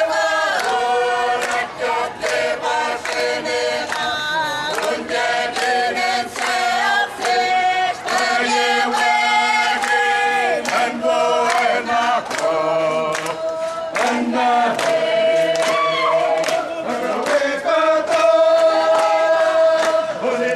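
A crowd singing together, like a choir, with long held notes and frequent sharp clicks over the singing.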